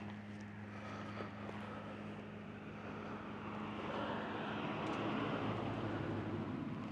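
Motorbike engines droning at a distance, swelling louder about four seconds in, over a steady low hum.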